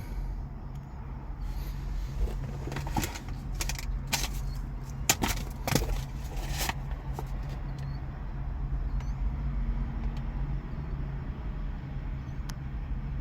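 A handful of sharp clicks and clunks from car interior fittings being handled, bunched about two to seven seconds in, over a steady low hum.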